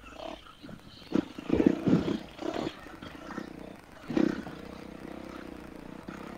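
Dirt bike engine revving in short, uneven throttle bursts, then running at a steady speed for the last couple of seconds.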